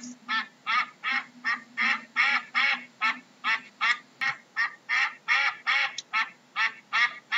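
A duck quacking over and over in a steady, rapid series of short quacks, about two and a half a second.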